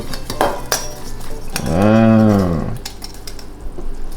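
A long, low, drawn-out "wooow" exclamation whose pitch rises and then falls, over light clinks and taps of kitchen utensils and dishes.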